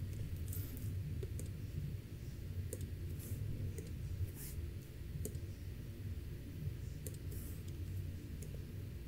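Faint, irregular clicks and a few short scratchy strokes from working a computer's pointing device, over a steady low hum.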